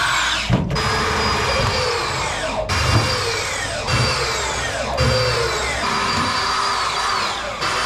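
Corded power drill driving self-tapping screws through sheet steel along a frame-rail seam. The motor runs at full speed, its whine falls as the trigger is let off, and this stops and starts several times.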